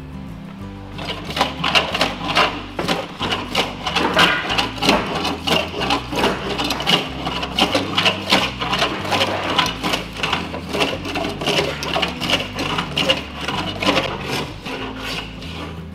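Small hand plane shaving a curved Douglas fir boat frame in quick short strokes, about three or four a second, starting about a second in.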